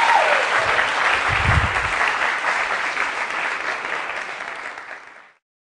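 Audience applauding, fading over the last couple of seconds and then cutting off abruptly.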